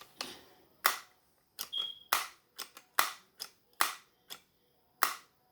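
Sharp plastic-and-metal clacks from the action of a Crosman Pumpmaster 760 air rifle being worked by hand: about five loud clacks roughly a second apart, with softer clicks between them.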